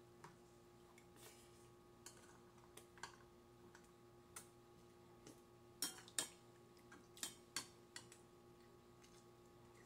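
Scattered light clicks and taps of chopsticks and a metal spoon against ceramic bowls during a meal, loudest in a quick pair about six seconds in, over a faint steady hum.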